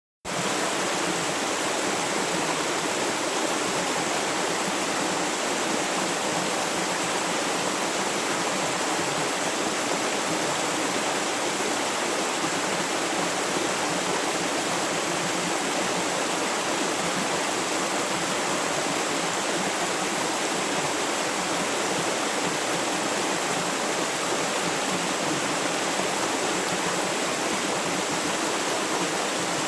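Flowing river water: a steady, unbroken rushing hiss that fades in within the first moment.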